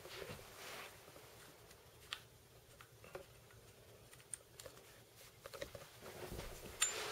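Faint handling of airsoft rifle parts: scattered small clicks and taps, with a sharper click near the end.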